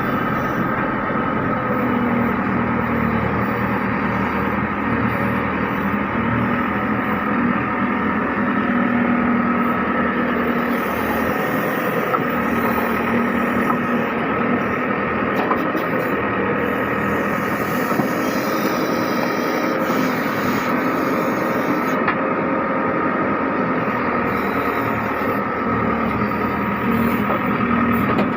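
JCB 3DX backhoe loader's four-cylinder diesel engine running steadily, its tone shifting now and then.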